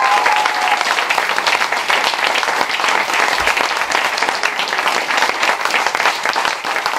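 A roomful of people applauding, dense steady clapping throughout.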